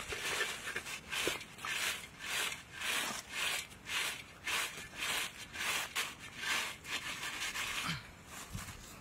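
A utensil scraping and stirring a large metal wok full of roasting tamarind beetles, in even strokes about two a second that stop near the end.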